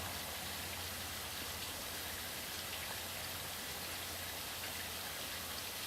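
Steady, even hiss with a faint low hum underneath and no distinct events.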